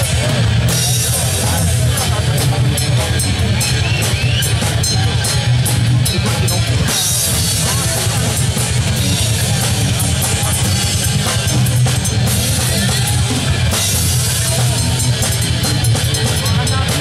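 Live rock band playing loudly: electric guitars, bass guitar and a drum kit with a steady beat and frequent cymbal hits.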